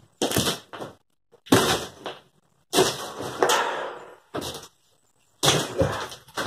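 Sheet of subfloor being wrenched up off wooden floor joists: several sudden cracks and creaks of the board tearing loose and flexing, in about five bursts with short quiet gaps between them, the longest near the middle.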